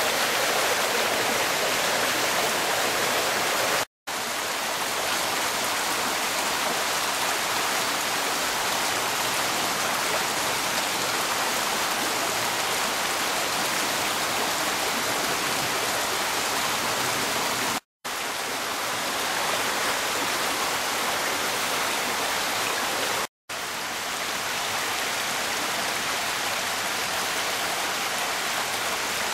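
A creek running steadily below the boardwalk, a constant rush of water. The sound drops out completely for a moment three times: about four seconds in, about eighteen seconds in, and again about five seconds after that.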